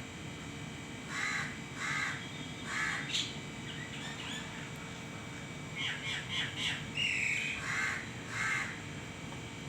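A crow cawing repeatedly, single caws roughly a second apart, then a quicker run of shorter calls about six seconds in and a longer call just after, with fainter chirps from smaller birds in between.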